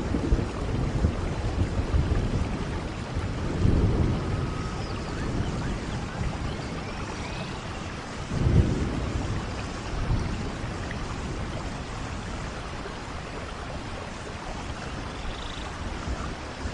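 Steady rain with rolling thunder: low rumbles swell about four seconds in and again around eight to ten seconds, then the rain carries on alone.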